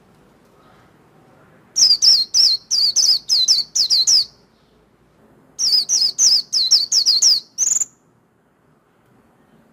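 White-eye (vành khuyên) singing its 'líu' song: two runs of quick, high, repeated downslurred notes, about four a second, each run lasting about two seconds. The second run ends on a short rising note.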